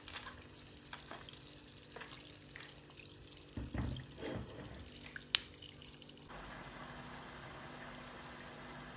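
Faint crackling and small pops from chicken feet in freshly poured 7-Up in a pot, with a couple of dull knocks and one sharp click. About six seconds in, this changes to the steady hiss of the lidded pot boiling.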